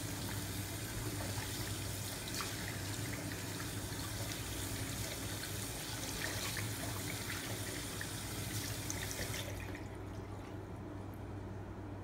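Bathroom sink faucet running, its stream splashing over hands being washed in the basin. The water is shut off near the end.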